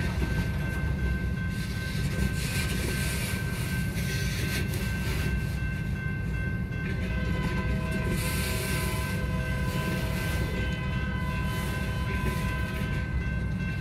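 Freight train boxcars rolling past at a grade crossing: a steady, unbroken rumble of wheels on rail, with a steady high whine running over it.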